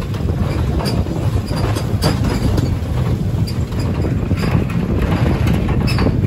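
Open-backed truck driving on a rough dirt track: a steady low rumble of engine and road, with the metal bed and railing rattling and knocking irregularly.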